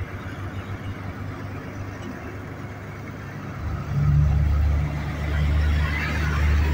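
Diesel engine of a truck-mounted crane running at a low steady drone, which gets much louder about four seconds in and stays there while the hydraulic boom lowers its work basket.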